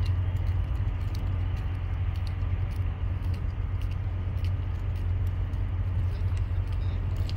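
Steady low rumble of a Great Lakes bulk carrier's engine as the ship passes, with a few faint ticks over it.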